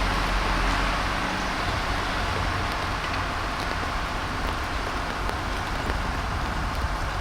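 Heavy wet snow falling and dripping, a steady patter with faint scattered ticks, over a low steady hum.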